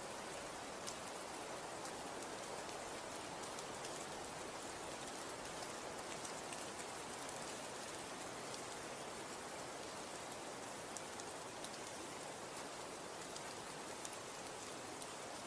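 Falling snow pattering on surfaces: a steady soft hiss with scattered light ticks.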